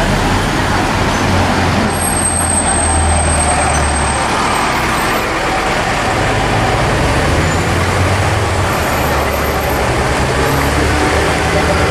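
Street traffic: a steady low rumble of motor vehicle engines, heavy vehicles among them, with a constant hiss of road noise.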